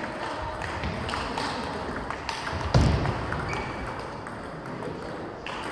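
Table tennis ball clicking irregularly off bats and the table in a rally, with more clicks from other tables in the hall. A heavy thud about three seconds in is the loudest sound.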